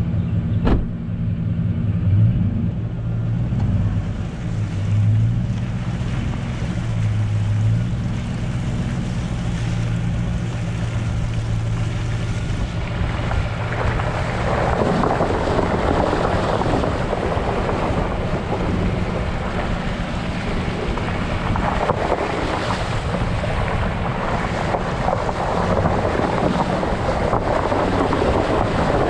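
Ford F-150 pickup engine running with a steady low hum as the truck crawls along a muddy track; from about halfway on, its tyres slosh and splash through standing water in waves that swell and fade, with wind noise on the microphone.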